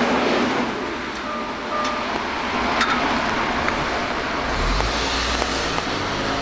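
Road traffic at a railway level crossing: cars moving over the crossing, with a low rumble of a passing vehicle about five seconds in.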